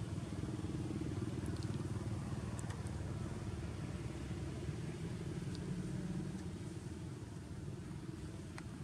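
Low, steady rumble of a motor vehicle engine, easing off slightly near the end, with a few faint clicks.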